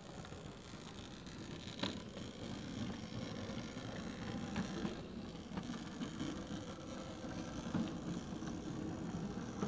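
0e-scale narrow-gauge model train rolling past on its track: a steady low rumble of the wheels and running gear, with a few faint clicks scattered through it.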